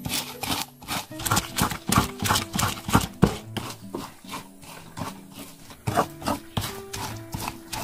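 Wooden pestle pounding and crushing green chillies in a wooden bowl: irregular knocks of wood on wood, two or three a second.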